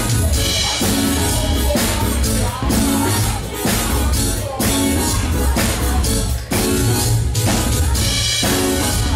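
Live band playing a dance number: drum kit keeping a steady beat over heavy bass guitar and keyboards.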